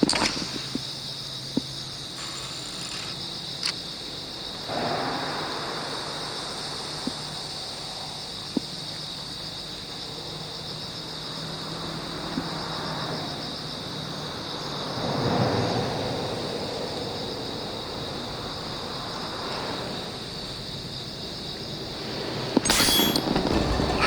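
Steady high-pitched chirring of insects over soft outdoor rushing noise, with a few sharp clicks, and louder rustling and knocking near the end.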